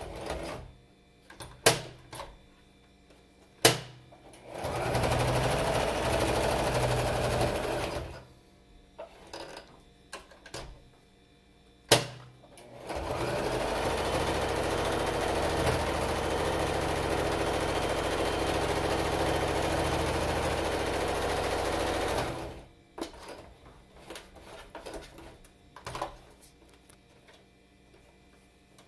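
Electric home sewing machine stitching fabric in two runs: a short one of about three seconds, then a steady one of about nine seconds. Sharp single clicks and light handling noises fall in the pauses between runs.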